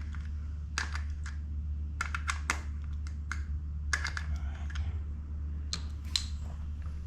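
Irregular light metallic clicks and taps of a small ratchet and bolts as the oil filter cover bolts on a Suzuki DR650 are taken out, over a steady low hum.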